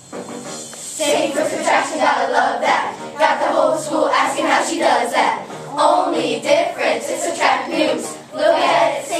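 A group of children rapping math lyrics about fractions together in unison, their voices coming in about a second in.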